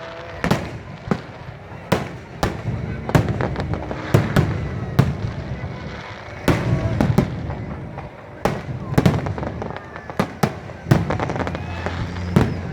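Aerial fireworks going off: sharp bangs of bursting shells at irregular intervals, about twenty in all, each trailed by a low rumbling echo, with people talking in the background.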